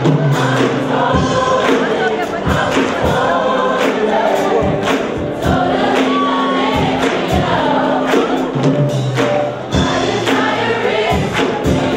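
Choir singing gospel music over a steady beat.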